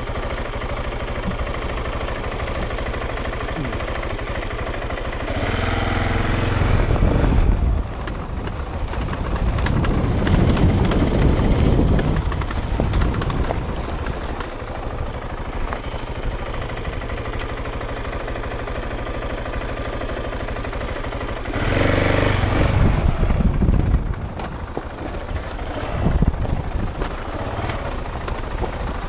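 KTM 690 Enduro R's single-cylinder four-stroke engine running at low revs, opened up twice: about five seconds in and again near the end. A rough rumbling stretch follows the first burst of throttle.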